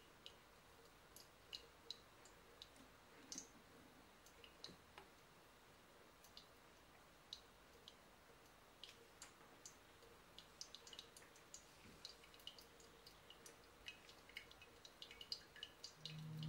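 Faint, irregular ticks of dripping water, several scattered through each second or two, over quiet room tone.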